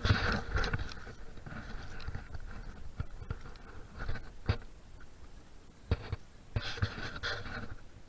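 Handling noise from a handheld camera being moved about: irregular scraping and rubbing with scattered knocks, heaviest at the start and again near the end.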